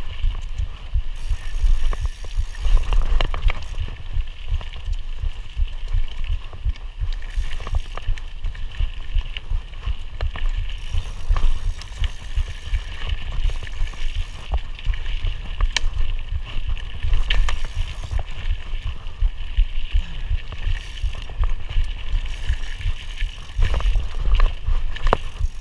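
Mountain bike ridden over singletrack trail, its frame and parts rattling and clicking over bumps and roots, over a constant low rumble, with a steady high hum underneath.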